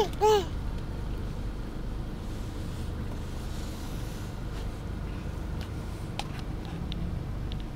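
Steady low rumble inside a car's cabin, the engine running in slow traffic. Right at the start come two short high-pitched sounds that rise and fall, and a few faint ticks follow later.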